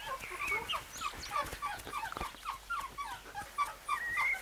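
Wolf pups whimpering and squeaking in a rapid string of short, high, falling whines: the begging of pups pestering an older wolf for regurgitated food.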